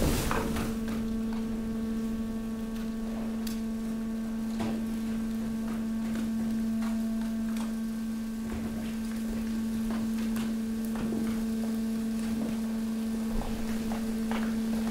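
Hydraulic garbage compactor press running, its power unit giving a steady even-pitched hum, with a few light knocks and scrapes of trash.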